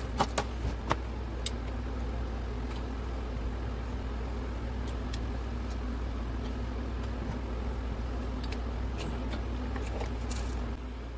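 A steady low hum of workshop background noise, with a quick cluster of sharp clicks and taps in the first second and a few lighter clicks later: small metal engine parts being handled and set down on the bench.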